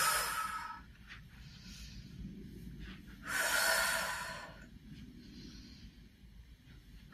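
A woman's forceful exhales through the mouth, one at the start and another about three seconds in, with fainter breaths between: she is breathing out with each push against a resistance mini band during banded side steps.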